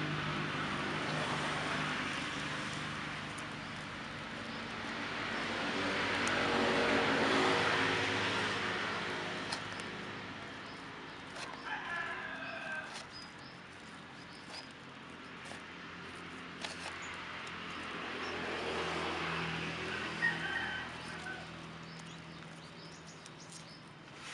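Road traffic passing, swelling and fading three times with an engine hum. A rooster crows about twelve seconds in and again near the end.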